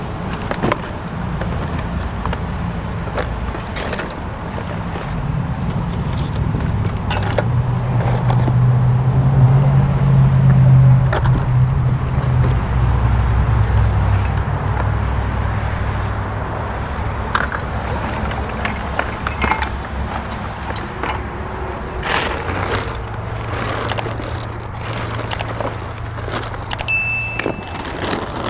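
A vehicle engine running close by. Its low hum grows louder about a third of the way in and then eases off, with scattered clicks and jangles throughout.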